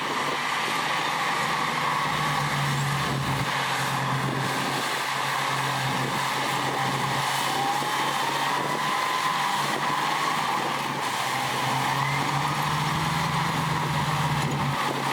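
Heavy diesel earthmoving machinery running steadily under load, with a faint whine that drifts slightly up and down in pitch.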